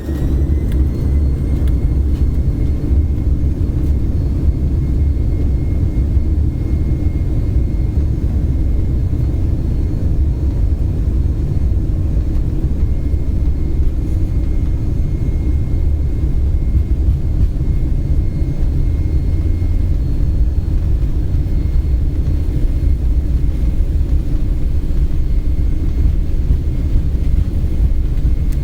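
Jet airliner taking off, heard as a loud, steady low rumble of engines and airflow with a faint high whine above it.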